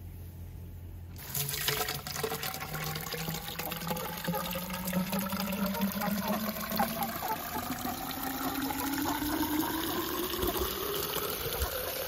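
Water from a garden hose pouring into the open top of a PVC-pipe chicken waterer. It starts about a second in, and its pitch rises steadily as the pipe fills.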